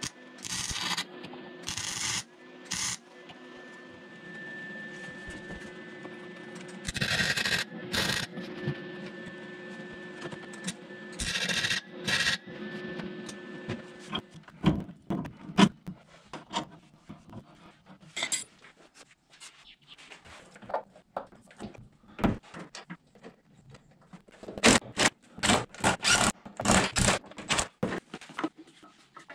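Angle grinder running, with short bursts of grinding on steel that throw sparks. In the second half the motor hum stops and a run of irregular sharp clicks and knocks follows, thickest near the end.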